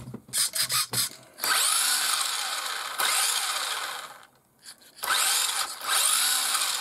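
Tamiya TL01B Baja King's brushed electric motor and gear drive spinning the wheels in the air under throttle through a mechanical speed controller: a whirring whine that rises and falls in pitch, in two runs with a short pause about four seconds in, after a few clicks at the start. The run shows the newly fitted mechanical speed controller working.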